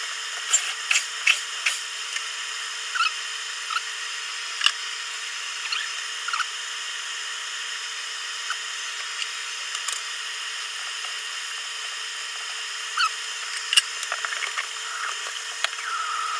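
Home-made bee vacuum running steadily, with scattered sharp clicks as bees are sucked through and rattle down its flexible hose.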